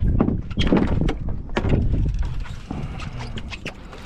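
Irregular knocks and thumps, several a second and loudest in the first two seconds: a big freshly landed snapper (pargo) flapping and banging on the boat.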